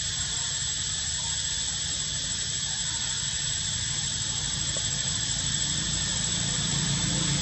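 Steady high-pitched drone of insects, with a low rumble underneath that grows a little louder near the end.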